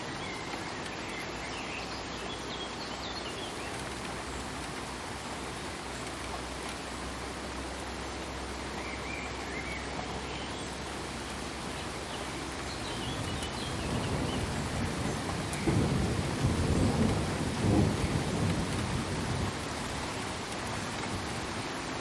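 Steady rain falling. Past the middle, a low rumble of thunder swells for about six seconds and fades out.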